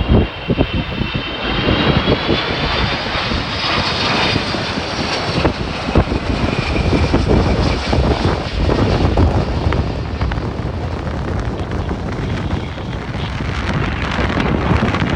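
Jet airliner's turbofan engines going past on landing approach: a steady engine rumble with a high fan whine that rises in pitch over the first few seconds and then fades. Gusty wind buffets the microphone throughout.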